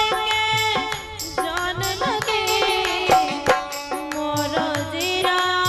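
A woman singing a Bundelkhandi Sawan folk song over a harmonium, with regular drum strokes keeping the beat.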